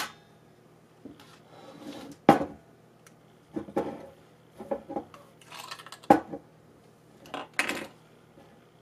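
A few sharp clicks and light clatter of small kitchen items being handled on a tabletop while a fresh angled cut is made on a thyme stem cutting. Three louder clicks come near the start, about two seconds in and about six seconds in, with softer handling noises between them.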